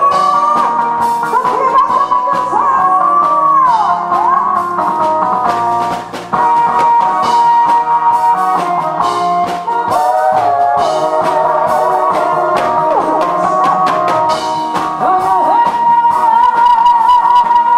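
A woman singing into a microphone over an instrumental backing with a steady drum beat, her voice carrying a wavering, sustained melody line.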